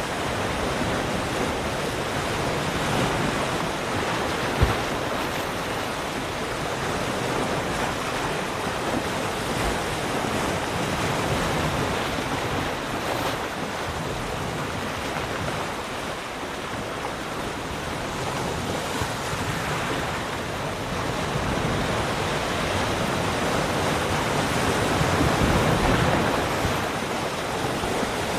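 Ocean surf: waves washing in as a continuous hiss that slowly swells and ebbs. There is a single short knock about four and a half seconds in.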